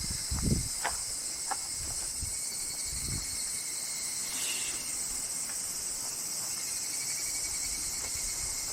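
Cicadas singing in a steady, high-pitched drone, with a couple of soft footstep thuds in the first three seconds.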